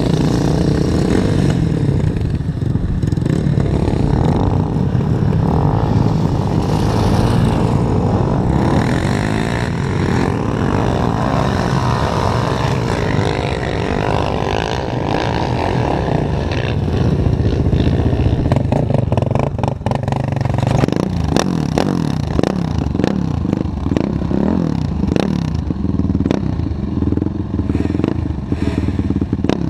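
Yamaha YFZ450 quad's single-cylinder four-stroke engine running as the quad is ridden across soft sand, with wind rushing past. In the last third the run eases off and the engine sound is broken by repeated knocks and rattles.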